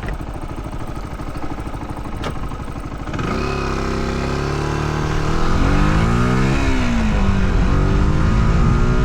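Motorcycle engine running at a low steady beat, then pulling away about three seconds in: the revs climb, drop back as it shifts up a gear, and climb again.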